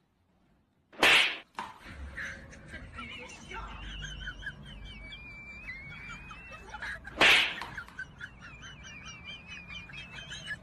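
Birds chirping and warbling steadily in the background. Two short, loud whooshing bursts of noise cut in, one about a second in and one about seven seconds in.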